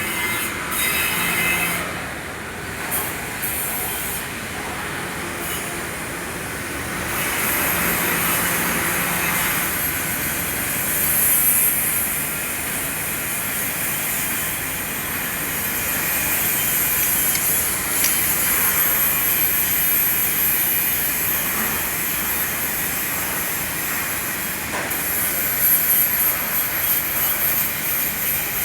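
Electric arc welding: the arc crackles and hisses steadily, with a few short breaks in the first seconds.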